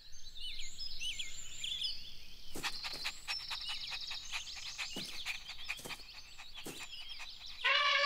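Cartoon outdoor ambience of birds chirping and tweeting in quick high calls, with a short rapid trill and a run of sharp clicks through the middle. Near the end a cartoon puppy starts a long, loud call.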